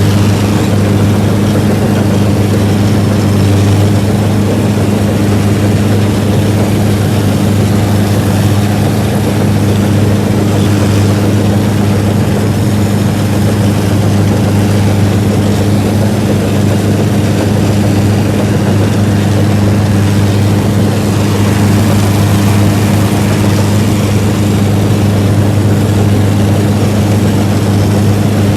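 Ködel & Böhm Köla Combi combine harvester running steadily, its engine giving a loud, even low hum with no change in speed.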